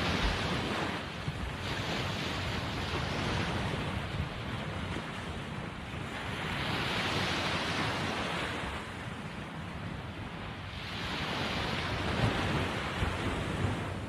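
Sea waves washing in and drawing back, a steady hiss that swells and eases every few seconds, with wind buffeting the microphone.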